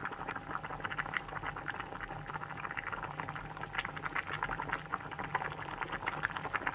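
Nilagang baboy (pork stew with corn cobs, potatoes and carrots) boiling in a large enamelled pot: a steady, dense bubbling and popping of the broth.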